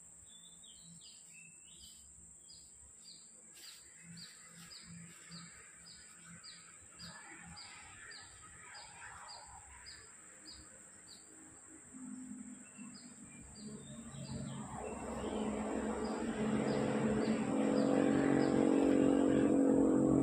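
Bird chirping in a quick run of short, evenly repeated calls, about two a second. From about twelve seconds in, an engine grows steadily louder and ends up covering the birdsong.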